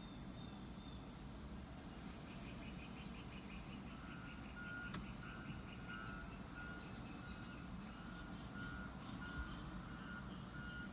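Outdoor street ambience under a storm sky: a steady low rumble, with a rapid high chirping from about two seconds in and an evenly repeating high beep joining about four seconds in.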